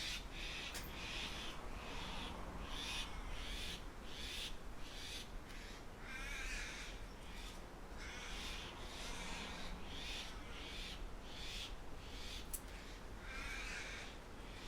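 Birds calling in quick repeated notes, about two a second, with a longer wavering call about six seconds in and another near the end, over a steady low background rumble.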